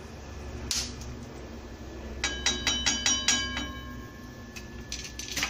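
A steel slotted spatula clinking against metal kitchenware, knocking off the fried spices: one click, then a quick run of about eight ringing clinks about two seconds in, with a few more near the end. The struck metal rings on after the taps.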